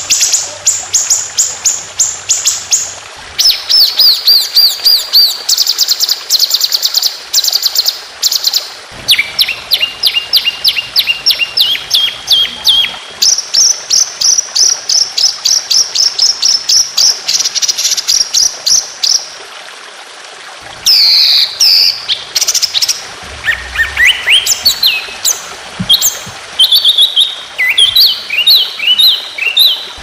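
Songbird singing a masteran of fast 'tembakan' phrases: high-pitched trills of rapidly repeated notes, each run held for a few seconds before switching to a different note. The runs break off briefly about two-thirds of the way through, then resume with sweeping whistles and more quick trills.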